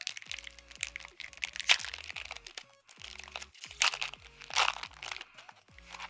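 Foil wrapper of a Pokémon trading-card booster pack crinkling and crackling in irregular bursts as it is handled and torn open, loudest in three spells. Background music plays underneath.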